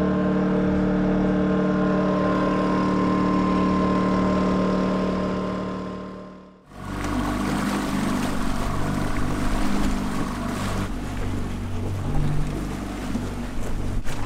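A steady hum of several held tones fades out over the first six or so seconds. Then water rushes and splashes along the hull of a Corsair 880 trimaran under way, with wind gusting on the microphone.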